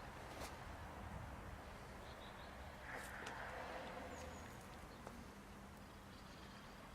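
Faint background hiss with a few short high chirps and a handful of sharp clicks.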